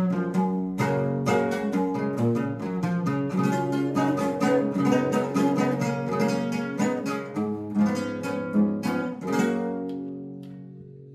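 Colombian bandola strummed and plucked in a quick, even rhythm, closing with a final chord that rings out and fades away over the last second or two.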